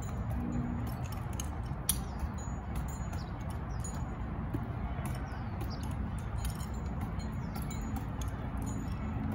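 Tree climber's metal hardware and climbing spurs giving irregular sharp clicks and clinks while ascending a palm trunk, over a steady low rumble.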